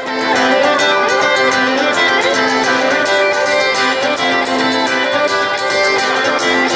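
A band playing music, full and steady, with sustained notes held throughout.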